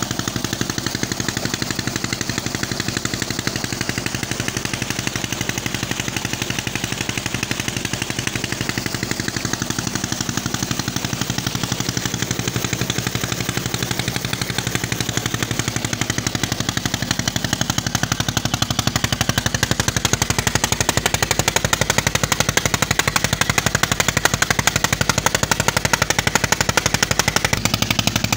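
Diesel engine driving a tubewell pump, its exhaust beating in a fast, steady rhythm, over the rush of water gushing from the outlet pipe and splashing into the channel. It grows a little louder about two-thirds of the way through.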